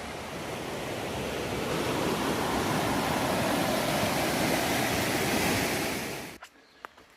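Waterfall or cascading stream rushing, a steady roar that grows louder over several seconds, then cuts off abruptly about six seconds in, leaving a quiet background with a few faint ticks.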